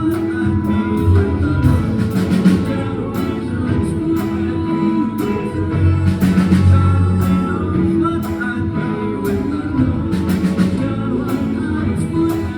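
Live pop-rock band playing with singing: guitar and other instruments over a steady drum beat, recorded from the audience.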